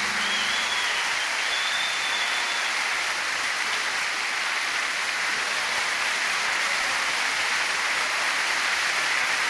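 Steady crowd applause following the end of a song.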